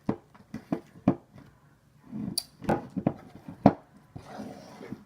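Homemade glue slime being stirred in a bowl: a string of irregular sticky clicks and taps as the mixture thickens and starts to come together.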